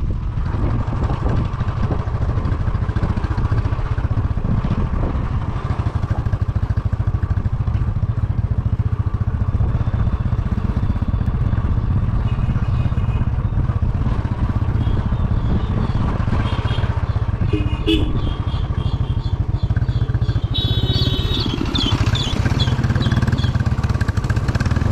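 A motor vehicle engine running steadily while travelling, a constant low drone with road noise. Faint higher-pitched sounds come and go in the second half.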